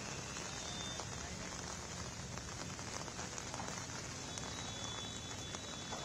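Steady rain falling on a wet road, an even hiss with no break.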